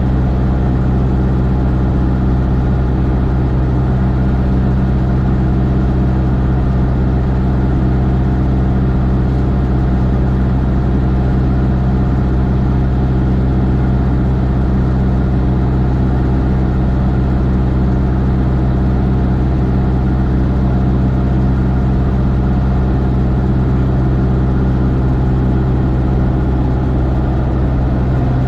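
Single-engine Cessna's piston engine and propeller droning steadily in flight, heard from inside the cockpit, with a strong, unchanging low hum.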